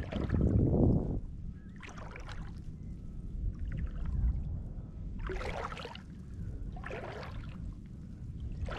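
Legs wading slowly through shallow bay water, a swishing slosh with each stride every couple of seconds, over a low rumble of wind on the microphone that is heaviest in the first second.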